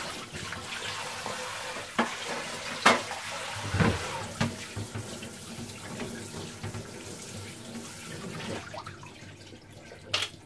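Kitchen tap running into a stainless-steel sink and splashing onto a plastic basin as something is rinsed under it, with a few sharp knocks about two to four seconds in. The water stops near the end.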